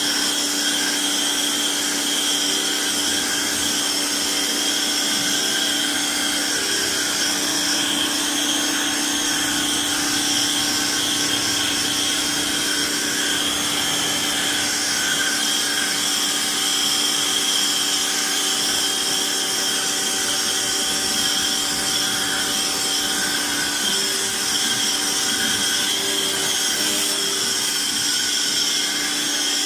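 Electric pressure washer running steadily, with the hiss of its water jet spraying over the car's engine on a lower-pressure setting.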